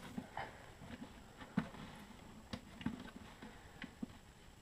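Scattered light clicks and taps of plastic and metal parts as gloved hands fit the gas conversion kit's adapter and hose onto a Honda EU 2000 generator's carburettor.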